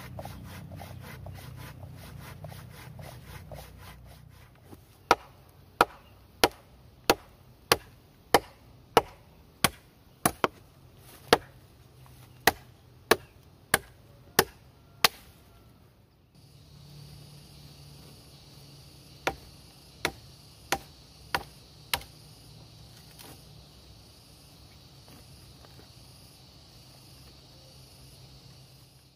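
Machete chopping into a green sapling trunk: a steady run of about sixteen sharp strikes, roughly one and a half a second, then after a short pause five more.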